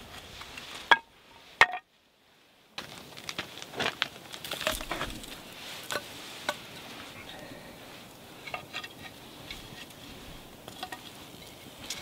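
Thin wooden kindling being split and snapped on a log chopping block, with two sharp cracks, then about a second of dead silence. After that, sticks of firewood are knocked and laid onto campfire embers, with scattered light clicks and crackles.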